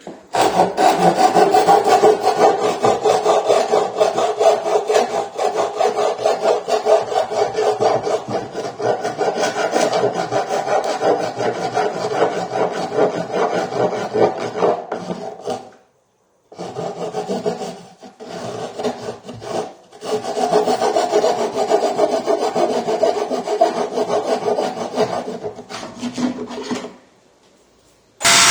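Hand rasping of wood in rapid, continuous strokes, trimming the edge of the round driver cut-out in a wooden speaker-cabinet panel. It pauses briefly twice past the middle and stops shortly before the end, when a steady motor whine starts.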